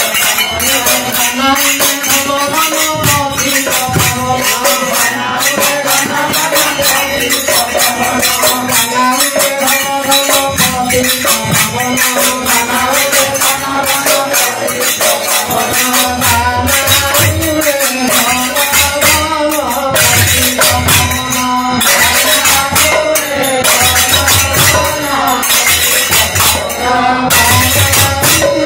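Devotional kirtan: a group singing to a two-headed barrel drum (khol/mridanga) and steady jingling hand percussion.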